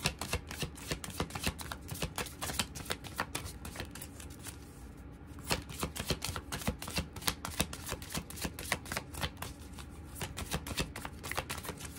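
A deck of oracle cards being shuffled by hand without pause: a fast, uneven run of soft card clicks and slaps.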